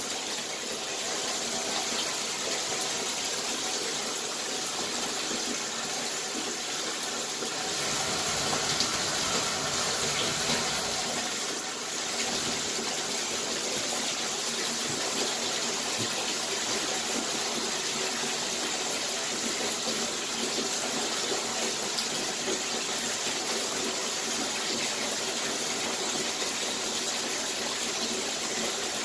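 Water running steadily in a bathtub shower, a little louder for a few seconds about a third of the way in.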